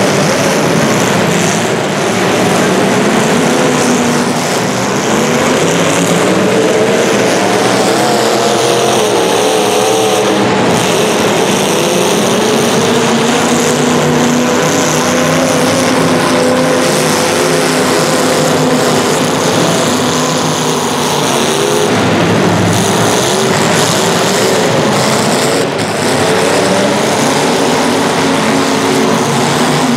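Several racing engines running hard together, their pitches rising and falling continuously over a steady roar.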